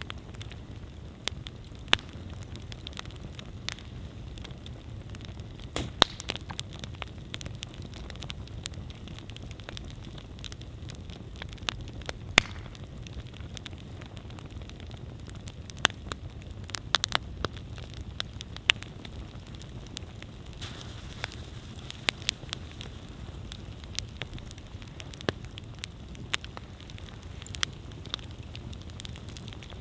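Wood campfire burning, with a steady low rumble of flame and sharp, irregular pops and crackles from the burning wood.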